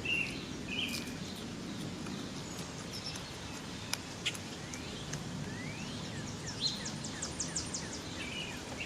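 Birds chirping and calling over a steady outdoor background noise, with a quick run of high ticks about seven seconds in.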